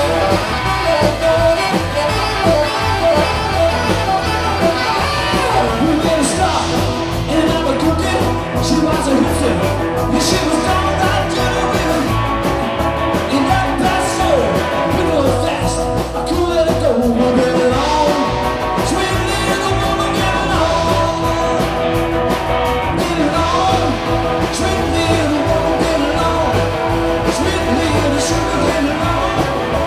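A rock and roll band playing live: hollow-body electric guitar, upright double bass, drums, and saxophone and keyboard, in a steady driving beat.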